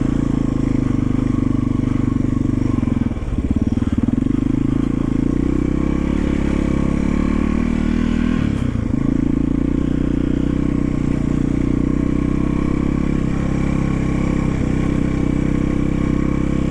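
1991 Yamaha XT350's single-cylinder four-stroke engine running while the bike is ridden. It has a steady low drone, and the note breaks briefly about three seconds in and again about eight and a half seconds in.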